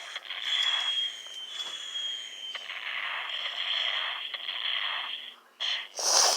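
Sound effects from a stickman animation, heard through a small tablet speaker with no bass: a long noisy hiss with a faint, slowly falling tone, which cuts off and is followed by two short, sharp bursts near the end.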